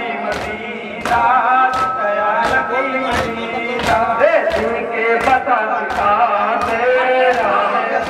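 A crowd of men chanting a mourning lament (noha) in unison, with sharp hand-slaps on their chests (matam) keeping an even beat of about one every 0.7 seconds.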